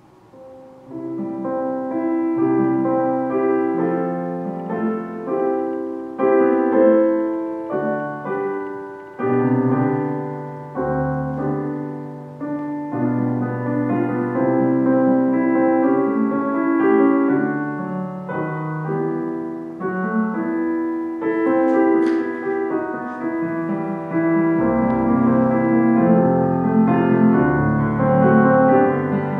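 Roland FP-80 digital piano playing a piece of chords over a moving bass line, starting about a second in.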